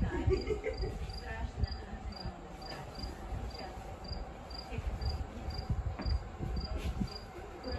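A cricket chirping steadily: short, high, evenly spaced chirps a little over two a second, over a low background rumble.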